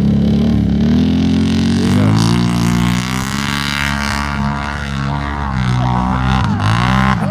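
ATV engine running at low revs, its pitch shifting as the throttle is worked, with a quick drop and rise in revs near the end.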